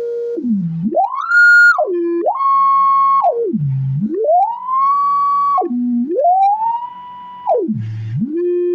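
Speaker driven by a freshly repaired Taramps MD 800.1 amplifier playing a test tone during a frequency test. The pure tone is swept up and down repeatedly, dipping low four times and rising high four times, holding briefly at each turn. It shows the amplifier is playing again after its power supply repair.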